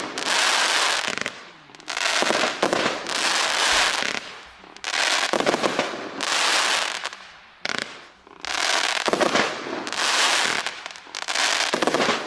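NICO 'WAHNsinn' 36-shot consumer firework fan battery firing in salvos: about eight bursts, each a second or so of crackle and bangs, roughly every one and a half seconds.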